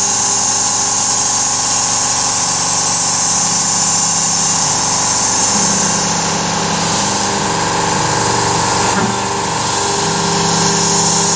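Carvera Air desktop CNC mill cutting, its spindle and end mill running over a steady hiss of the air-assist blast blowing the chips aside. A lower tone comes and goes several times, from about four seconds in, as the cut changes.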